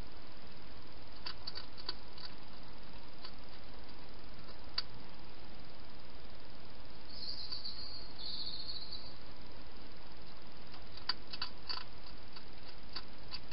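Wild hedgehog eating at a food bowl: faint crunching clicks in little clusters about a second in and again near the end, over a steady hiss. A short high sound comes about halfway through.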